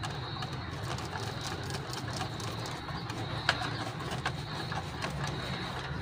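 Pigeons cooing, with a few faint clicks of a screwdriver working a terminal screw on a magnetic contactor.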